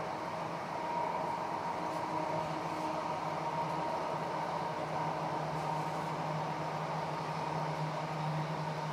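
Electric passenger train running at speed, heard from inside the carriage: a steady rumble of wheels on rail with a constant hum.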